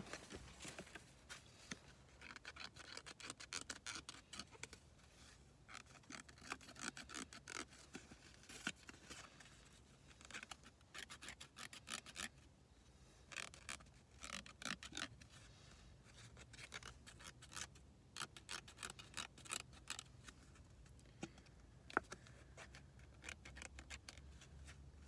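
A scratch-off lottery ticket being scratched: faint quick runs of scraping strokes, several a second, broken by short pauses.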